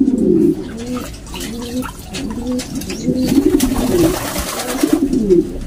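Domestic racing pigeons cooing over and over, several low warbling coos following one another.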